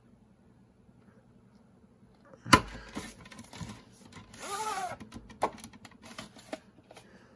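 A VHS tape's cardboard sleeve and black plastic cassette being handled. A single sharp knock comes about two and a half seconds in. A scraping rustle with a brief squeak follows as the cassette slides out of the sleeve, then a few light plastic clicks as it is set down.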